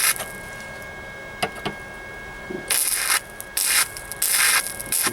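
Flux-core wire-feed welder laying short stitch welds on a steel floor-pan patch: three brief bursts of welding hiss in the second half, after a couple of light clicks.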